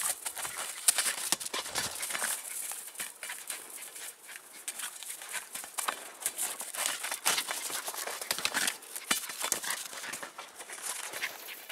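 Footsteps crunching in cold, dry snow: a quick, irregular run of crunches throughout.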